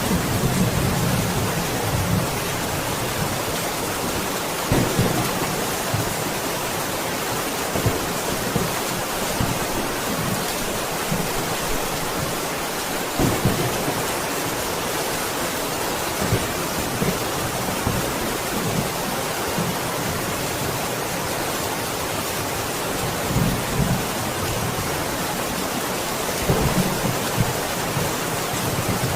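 Steady heavy rain, a dense even hiss, with low rumbles of thunder rising briefly several times.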